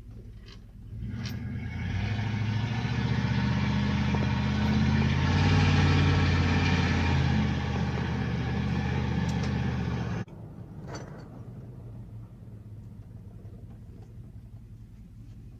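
A motor vehicle under way: engine running with road noise. It swells about a second in, builds to its loudest around the middle, and cuts off abruptly about ten seconds in, leaving a quieter low rumble.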